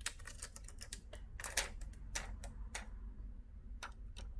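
Plastic film being peeled off a smartphone screen, giving sharp irregular clicks and crackles: a quick run of them at the start, then single ones every half second or so.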